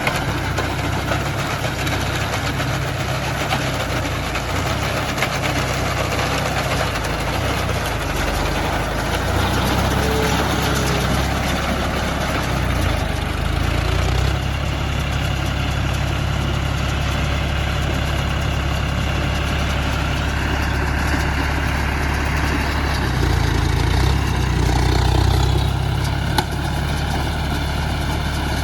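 John Deere 5105 tractor's three-cylinder diesel engine running steadily while working a round baler. It swells a little near the end, followed by a single sharp click.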